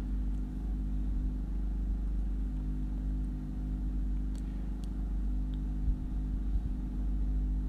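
Steady low mechanical hum with a few faint clicks about four to five seconds in.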